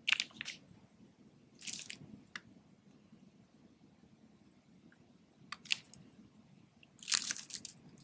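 Clear plastic zip bags crinkling in a few short rustles as feathers are handled against them, the longest and loudest near the end.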